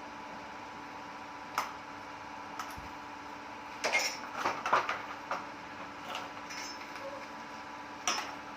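Hard objects being handled and set down: scattered clicks and knocks, with a cluster of clattering about four to five seconds in and one more knock near the end, over a steady low hum.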